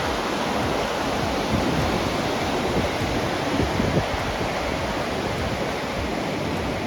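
Mountain river rushing, a steady even wash of fast-flowing water.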